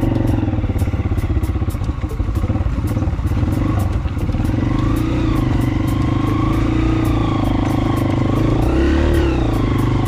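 Motorcycle engine running at low speed over a rough dirt track, steady, with small changes in pitch as the throttle is worked over the bumps.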